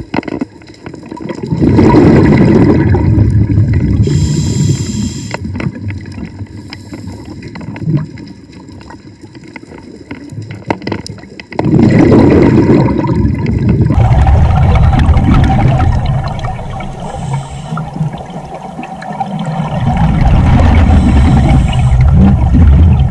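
Scuba diver breathing through a regulator underwater: long gurgling rushes of exhaled bubbles, with quieter stretches and small clicks between the breaths.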